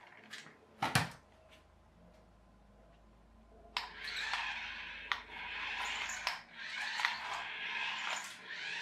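A few sharp clicks, then from about four seconds in the small electric motor and plastic gears of a single-channel radio-controlled toy train whirring and rattling unevenly as it is driven, with small ticks and short dips.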